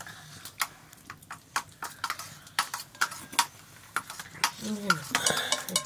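Kitchen utensils knocking and clicking irregularly, several sharp hits a second, with a short voice-like call about five seconds in.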